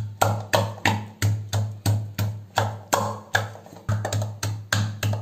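Rhythmic pounding, about three strokes a second, of a pestle crushing karpooravalli (Indian borage) leaves in a vessel to draw out their juice. Each stroke is a sharp knock with a short low thud.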